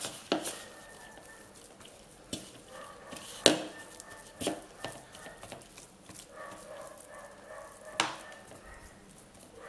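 Hands squeezing and rubbing crumbly butter-and-flour pastry dough in a plastic bowl: a quiet squishing and rustling, broken by about five sharp knocks against the bowl.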